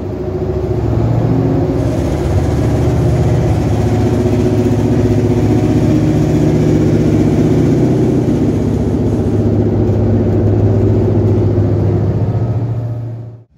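Diesel engines in the power pack car of a Stadler Class 755 bi-mode train running, a very loud steady drone with several low tones, heard from the corridor that runs through the power car. The sound cuts off abruptly near the end.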